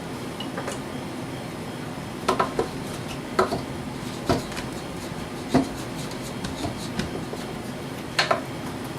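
Several short, light knocks and clicks of things being handled, some in quick pairs, over a steady low hum.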